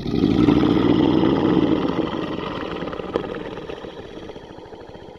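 Tiger growling in one long, low, pulsing snarl that is loudest over the first two seconds and then slowly dies away.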